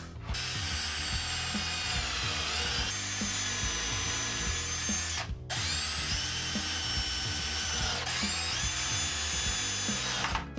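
Power drill running in two long runs of about five seconds each, with a short break between. Its whine drops in pitch under load partway through each run.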